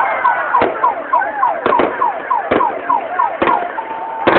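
Fireworks going off: a sharp bang about once a second, with a string of short, high, falling whistles about three a second between them.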